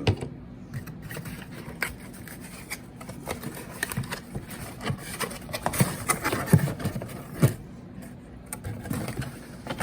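Irregular clicks, taps and scrapes of hands handling a boxed smoke alarm and its packaging, with a few sharper knocks a little past the middle.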